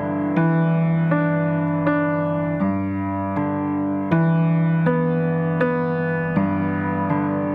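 Background music: a slow piano or electric-piano piece, notes struck about every three-quarters of a second.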